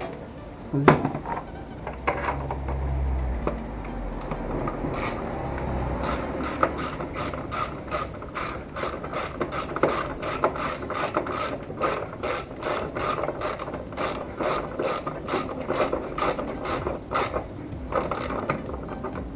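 Socket ratchet wrench clicking steadily, about three clicks a second for most of the stretch, as a bolt is turned. A single sharp knock comes about a second in.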